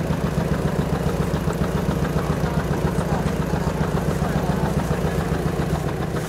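A vehicle engine idling steadily, with a fast, even pulse.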